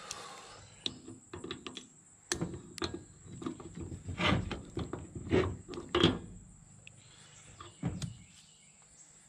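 Metal clinks, clicks and knocks as a U-joint cross is worked loose and pulled out of a drive shaft yoke by hand. The taps are scattered, with the loudest knocks about four and six seconds in.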